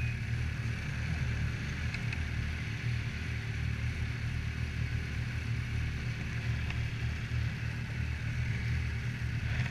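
Yamaha Viper XTX snowmobile's four-stroke three-cylinder engine idling steadily, with no revving.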